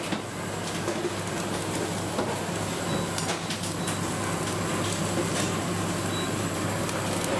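Busy professional kitchen ambience: a steady mechanical hum under scattered clinks and knocks of utensils and cookware, with a few brief high pings.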